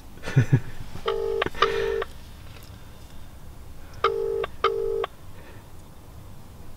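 British double-ring ringing tone from a smartphone held on speakerphone: two "ring-ring" pairs about three seconds apart, an outgoing call ringing and not yet answered. A short thump about half a second in.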